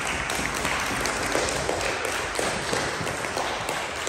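Applause: many children clapping their hands steadily together.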